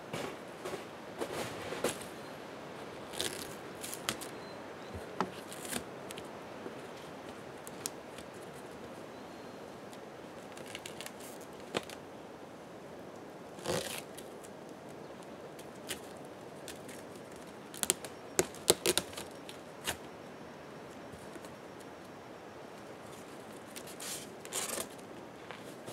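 Cardboard boxes being handled and their flaps opened: scattered short scrapes, rustles and tearing sounds, with a quick cluster of sharper ones a little past the middle.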